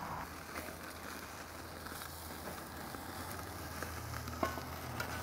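Ribeye steaks sizzling on the grate of a charcoal kettle grill over flaring coals, a steady hiss with scattered fine crackles. A couple of sharp clicks come near the end.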